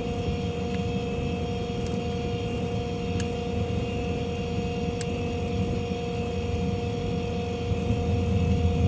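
Ford F550 service truck running with its hydraulics engaged: a steady engine rumble with a steady whine over it, swelling louder near the end.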